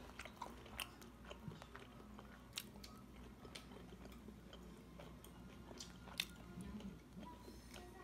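Faint mealtime sounds: chewing, and scattered light clicks of metal chopsticks picking at roasted fish on the plate. The clearest click comes about six seconds in.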